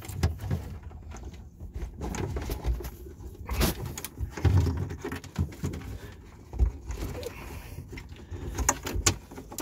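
Wire and corrugated plastic wire loom being worked by hand through a tight opening in fiberglass: irregular rustling and scraping with scattered knocks, the sharpest a little over three seconds in and again near the end.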